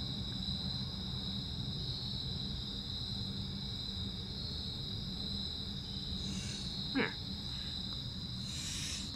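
Crickets singing in a steady, unbroken high trill, with a couple of brief rustles near the end.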